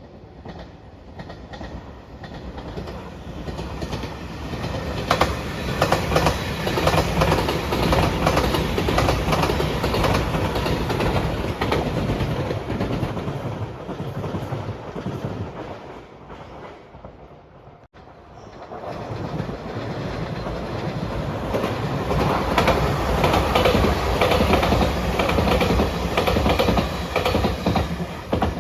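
Electric express train passing at speed, its wheels clacking over the rail joints as the sound builds up and fades away. After a sudden break about two-thirds of the way through, a second train pass builds up again.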